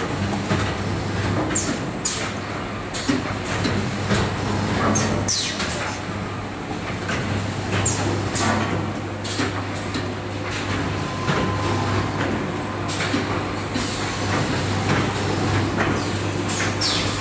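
Automated paint-roller finishing machine line running: a steady low hum with brief sharp clicks every second or two from its moving mechanisms.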